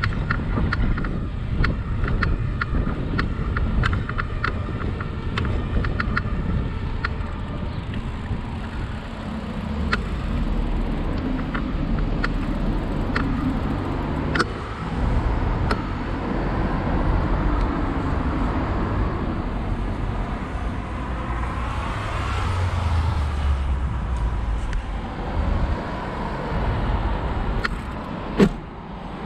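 Riding a bicycle: a steady rumble of wind on the microphone and tyres on the path, with scattered clicks and rattles from the bike and one sharper knock near the end.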